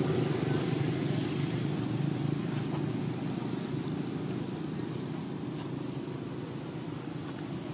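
Steady low rumble of a running motor, easing off slightly toward the end.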